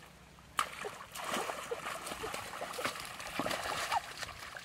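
Hands splashing and sloshing through shallow muddy water, with irregular drips and gurgles. There is a sharp click about half a second in.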